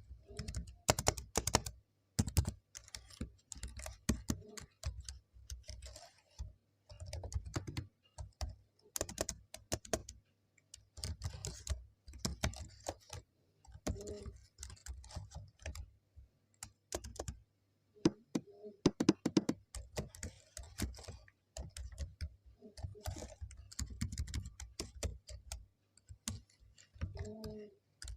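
Typing on a computer keyboard: quick runs of key clicks and thocks in bursts of a second or two, with short pauses between them.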